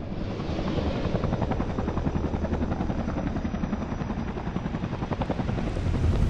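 A steady, rapidly fluttering mechanical drone that swells near the end.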